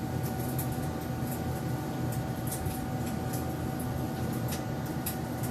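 Steady machine-like hum with a faint constant tone, with scattered small clicks over it.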